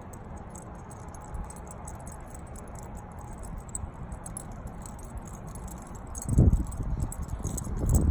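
Faint jingling of a small dog's collar tags as it runs across grass toward the microphone, growing louder as it comes near. Loud low thumps on the microphone from about six seconds in.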